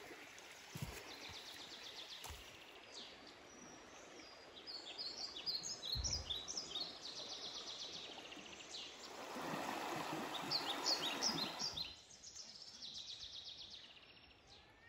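Several birds chirping and trilling in the bush, with a few soft footstep thumps on dirt in the first seconds. From about nine to twelve seconds in, the rush of flowing river water rises under the birdsong.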